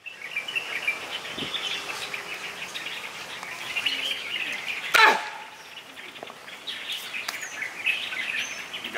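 A single sharp crack about five seconds in as a bare fist strikes a smooth stone held on a row of stones, over steady chirping of birds.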